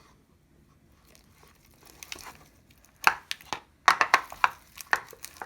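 Sticky, half-activated slime of glue and borax activator being mixed, sticking to its container. It gives irregular wet, crackling clicks that start about two seconds in and come thick and loud after about three seconds.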